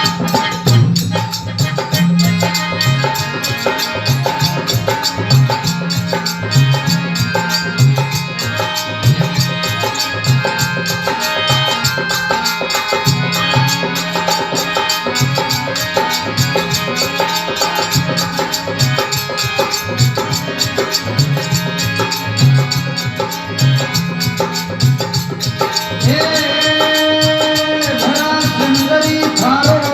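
Instrumental interlude of Marwari folk bhajan music: a sustained reed-keyboard melody over a steady hand-drum beat and jingling percussion, with no singing.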